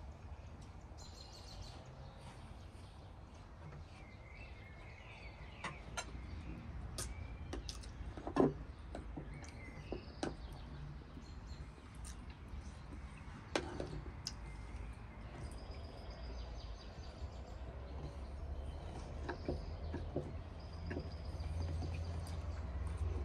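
Birds chirping in the background over a steady low rumble, with a few sharp clinks of cutlery on plates during an outdoor meal, the loudest about eight seconds in.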